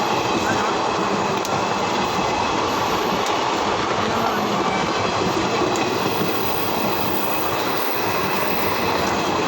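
Train running along the track, a steady noise of wheels on rails.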